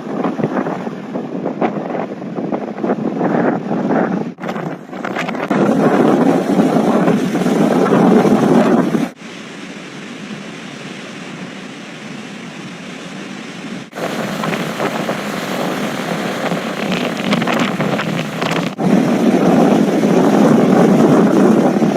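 Storm wind buffeting the microphone over the rush of surf, in a run of short clips cut together, the level jumping abruptly at each cut and dropping for a quieter stretch in the middle.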